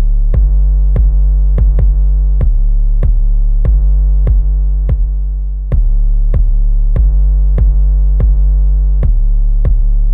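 Instrumental hip-hop beat with no vocals: a long held electronic bass note under sharp drum-machine clicks at a steady pace.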